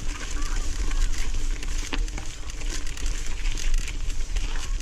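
Mountain bike in motion on a dirt trail: a heavy low rumble of wind on the microphone with scattered clicks and rattles from the bike over the ground.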